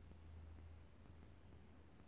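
Near silence: room tone with a faint low hum.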